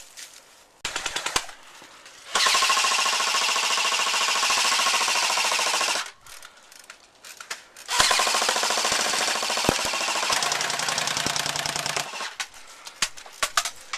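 Airsoft electric guns firing on full auto: a short burst about a second in, then a long burst of about three and a half seconds, another of about four seconds starting about eight seconds in, and a few scattered shots near the end.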